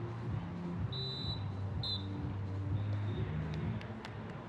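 Referee's whistle blown in two short, shrill blasts, about a second in and again near two seconds, with a fainter third blast around three seconds, over background music from the venue's speakers.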